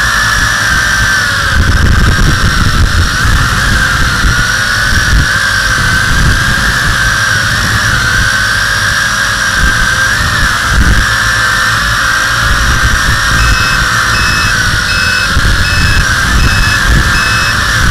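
WLToys V262 quadcopter's four motors and propellers whining, heard from the camera on board, the pitch wavering up and down as the throttle changes, over a rumble of prop wash on the microphone. A faint high beeping, about one to two a second, comes in during the last few seconds.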